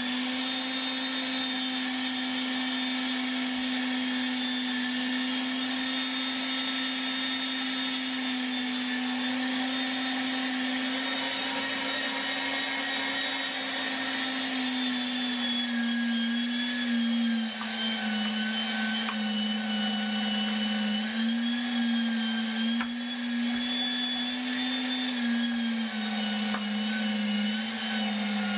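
MEAT! Your Maker 500-watt electric meat grinder running steadily, a motor hum and whine, while it grinds chilled cubes of beef. About halfway through, the pitch drops a little and wavers as more meat is pushed through.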